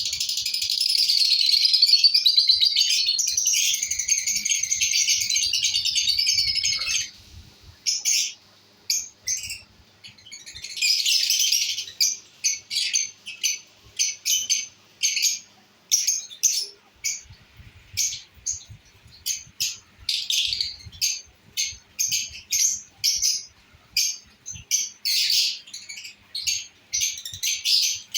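Pet lovebirds chattering: a continuous high twittering for about the first seven seconds, another burst around eleven seconds, then a run of short sharp chirps, several a second.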